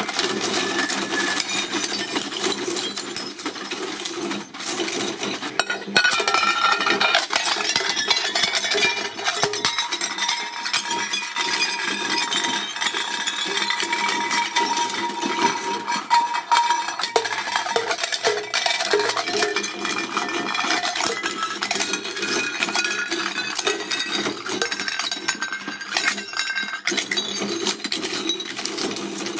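Shredding machine grinding hard material: a dense, continuous clatter of small hard pieces.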